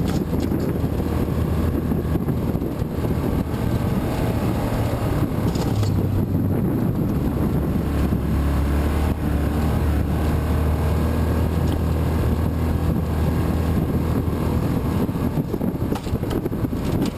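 Yamaha Rhino side-by-side's engine running steadily while driving along a trail, its low engine note shifting as it goes.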